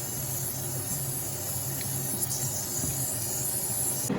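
Rinsed, still-wet shrimp sizzling in butter in a hot pan: a steady hiss that cuts off suddenly near the end.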